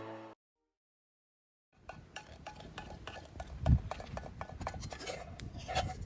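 Background music cuts off abruptly, followed by a short dead silence. Then come scattered light clinks and knocks, with one heavy low thump about midway.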